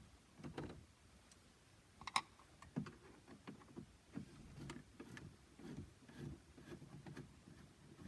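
Faint, scattered clicks and light knocks of hands and tools working on a car's interior plastic trim, with a sharper click about two seconds in and a knock just after.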